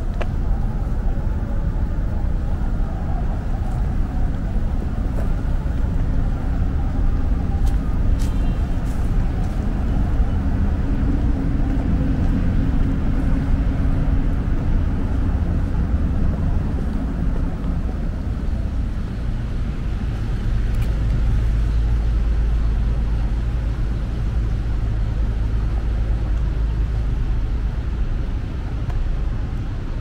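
Street traffic: vehicle engines running close by, a steady low rumble.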